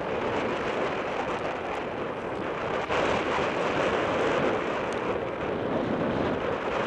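Wind rushing over a bike-mounted camera's microphone at speed, mixed with the noise of mountain-bike tyres rolling over a gravel trail: a steady, loud rush.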